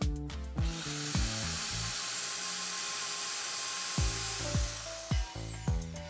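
Electric drill spinning up about half a second in and boring a screw hole through a laminated cabinet door, running steadily for about four seconds and then winding down near the end. Background music with a steady beat plays throughout.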